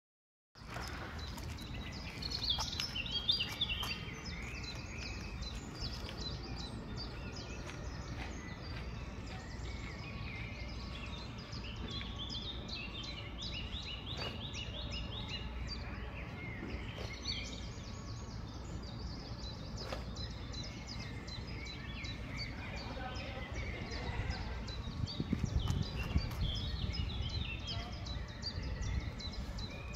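Several songbirds chirping and singing over a steady bed of outdoor background noise, with a louder low rumble swelling and fading about twenty-five seconds in.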